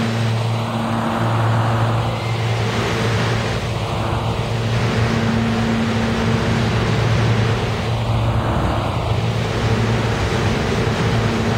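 New York City subway train running: a steady motor hum over the rumble of steel wheels on the rails.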